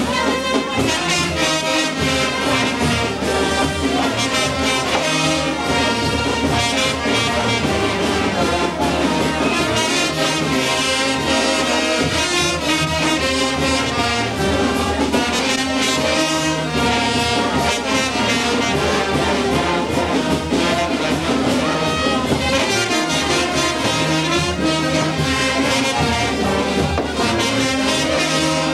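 Brass band playing a tune without pause, with a sousaphone among the horns.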